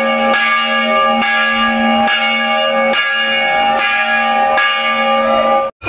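Metal temple bell struck over and over, a little less than once a second, each strike renewing a loud, sustained ringing. It cuts off abruptly near the end.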